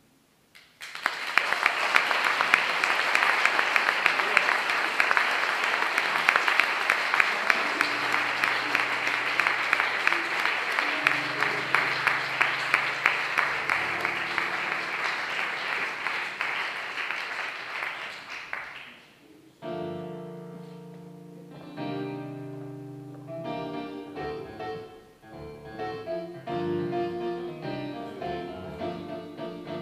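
Audience applauding loudly for about eighteen seconds in a reverberant church, with a piano quietly starting to play underneath partway through. The applause dies away and the piano carries on alone with slow chords.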